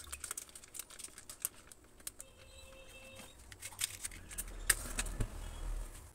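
Faint scattered light clicks and taps, with a brief faint steady tone just after two seconds. A low rumble builds about four seconds in, with a sharper click near five seconds.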